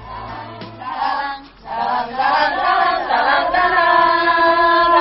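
A group of young women's voices chanting together in unison, getting loud about two seconds in and settling into one long held note.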